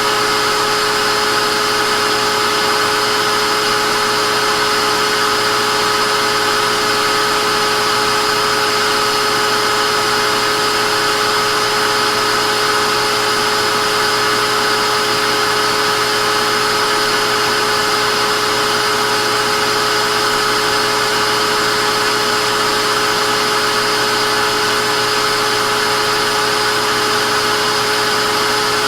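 Vacuum cleaner running continuously at a steady pitch: a constant motor whine with a few fixed tones over a rushing hiss of air, with no change in speed or load.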